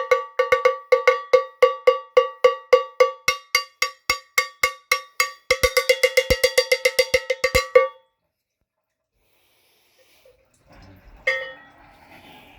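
Cowbell struck in a steady beat of about four strokes a second, quickening to a fast run of about seven a second before stopping abruptly about eight seconds in. A single sharp knock follows about three seconds later, with faint rustling.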